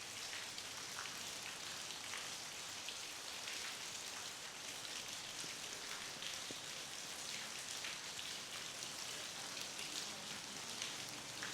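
Steady rain falling, a continuous hiss with the patter of many individual drops striking a surface.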